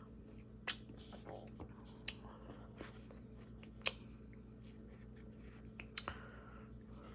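Close-up eating sounds of firm pear and cottage cheese: quiet chewing with four sharp, wet mouth clicks spread through, over a faint steady hum.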